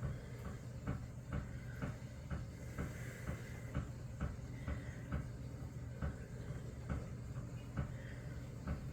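Dishwasher running: a steady low hum with a regular knocking about twice a second and a recurring swish, loud and irritating.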